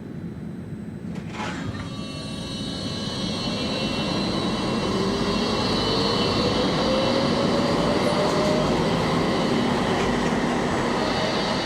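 NF4 tram moving along the track: a sharp knock about a second in, then a motor whine that rises in pitch as it gets louder, with a high squeal from the wheels.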